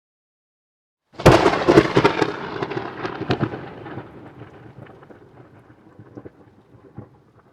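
Thunder clap sound effect: a sudden sharp crackling crack about a second in, followed by rumbling that fades away over several seconds.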